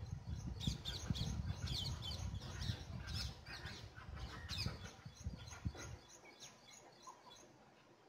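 A small songbird chirping at its nest: quick high chirps, several a second, that thin out after about five seconds, over a low rumble that stops at about six seconds.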